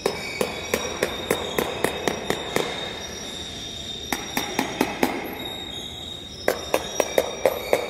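Ceramic floor tiles tapped one after another with a long rod, about three sharp knocks a second in three runs with short pauses between. This is a hollow-tile check: a hollow, rattly tap marks air trapped under the tile where the mortar bed did not fully cover its back.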